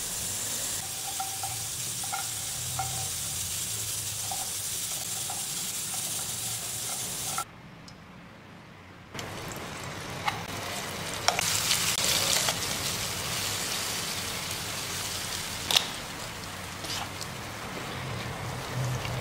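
Whole spices dry-roasting in a nonstick pan with a steady hiss and light ticks; after a short quieter gap about seven seconds in, blended spice paste sizzles in hot oil, louder and brighter, with a few sharp knocks as aromatics go in and a spatula stirs.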